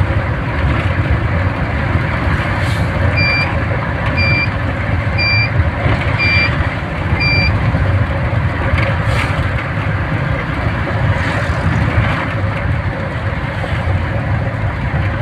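Steady running noise of a vehicle on the road, with engine and road rumble and wind hiss. About three seconds in come five short, high electronic beeps, about one a second.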